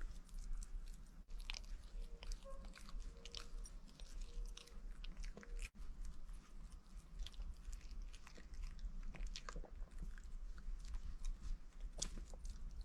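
A pet chewing and biting on a ham sausage, with faint, irregular wet smacks and chomps.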